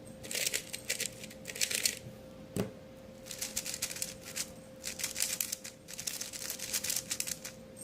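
Magnetic Yuxin Blue 4x4 speedcube being turned rapidly: quick runs of plastic clicking as layers snap into place under the magnets. There are two bursts of turning with a short pause and a single click between them.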